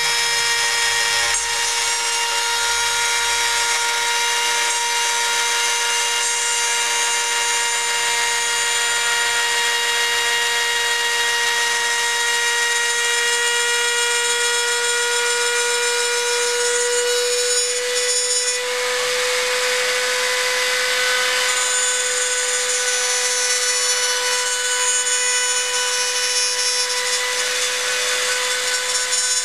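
Router spinning a bearing-guided cutter at high speed, a steady high machine whine, while it cuts the edge of an MDF pattern. Near two-thirds of the way through the level dips briefly and the cutting noise changes.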